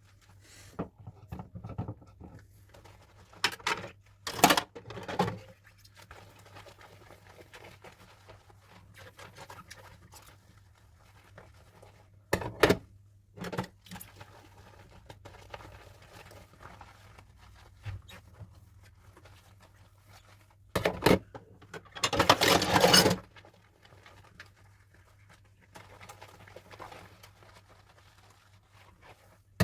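Dishes being washed by hand: short scrapes and knocks of dishware at irregular intervals, with one longer noisy burst about three quarters through. A faint low hum runs underneath.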